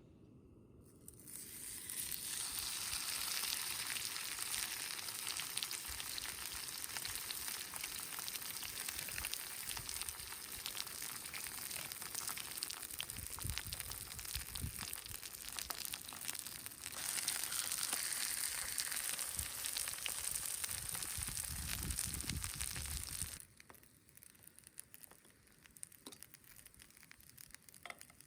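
Food sizzling in a hot pan, a dense crackling hiss that starts about a second in and cuts off suddenly near the end.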